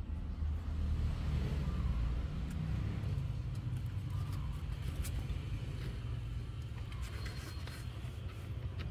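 A steady low rumble, like an engine running, with a few faint clicks and a brief high chirp near the end.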